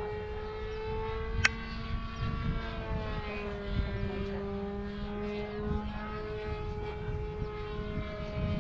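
A radio-controlled model airplane's motor and propeller running, a steady buzzing tone whose pitch slowly rises, dips and comes back up, over a low rumble of wind noise. There is a single sharp click about one and a half seconds in.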